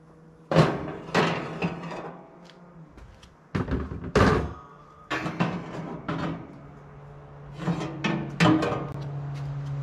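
Metal knocks and clanks as a wood pellet smoker grill is handled, its lid and parts being opened, shut and taken out. Several sharp knocks come at uneven intervals, some ringing briefly.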